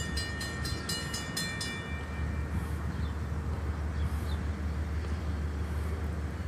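Railroad grade-crossing warning bell ringing rapidly, about three strikes a second, while the crossing gates come down; it stops about two seconds in, once the gates are down. A steady low rumble remains after it.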